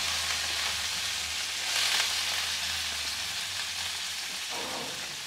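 Fish frying in hot oil in a pan: a steady sizzle that swells briefly about two seconds in.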